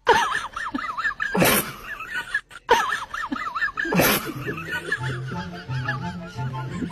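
Background music laid over the clips, with a high, fast-warbling voice-like sound in the first half and two short noisy bursts about a second and a half and four seconds in; a steady low beat comes in about five seconds in.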